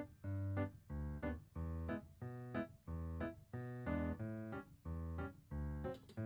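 Background music: a light keyboard tune with a steady beat of short bass and chord notes.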